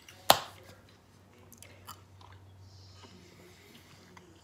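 A person chewing a toffee candy with the mouth, faint wet mouth clicks, after one sharp click about a third of a second in.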